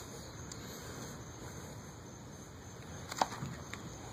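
A kayak on a PVC kayak cart being moved over pavement: a faint steady rolling and handling noise, with a sharp knock about three seconds in and a lighter one just after.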